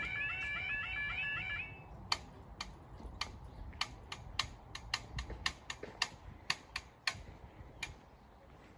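Level crossing warning alarm warbling in a repeating two-tone yodel, about three cycles a second, cutting off about two seconds in. After it come scattered sharp clicks at an uneven pace over faint background noise.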